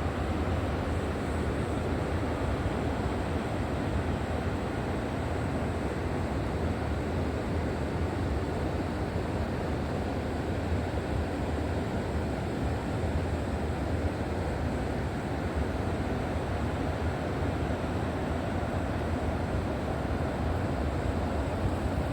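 River water rushing steadily, a constant even noise with a deep low rumble.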